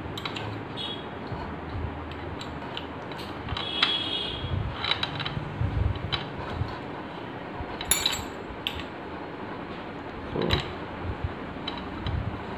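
Small metal clicks and clinks as a spanner key works the loosened flange nut on a DeWalt DWE4377 angle grinder's spindle, tightening it while the grinder is switched off. A brief metallic ring comes about four seconds in, and the sharpest clink about eight seconds in.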